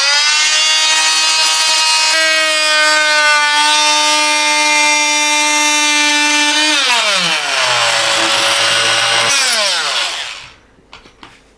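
Oscillating multi-tool cutting through plasterboard, a steady high buzz. About seven seconds in it winds down in pitch, is triggered again briefly, and winds down to a stop shortly before the end.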